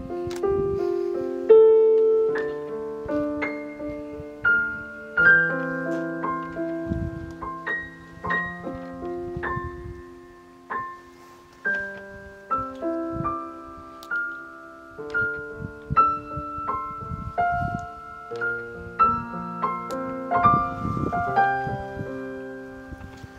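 Solo piano playing a melody over held chords, each note struck and then fading.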